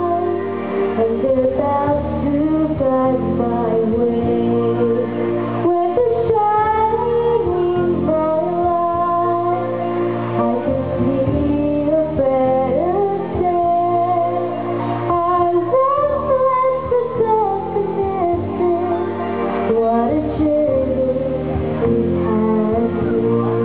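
A young girl singing a song into a microphone, with instrumental accompaniment underneath.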